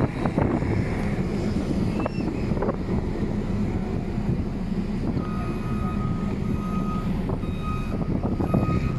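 A heavy construction machine's diesel engine running with a steady low rumble. About halfway through, its reversing alarm starts, beeping roughly once a second as it backs up.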